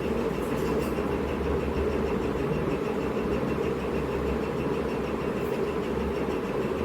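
A steady mechanical hum from a running motor, unchanging in pitch and level.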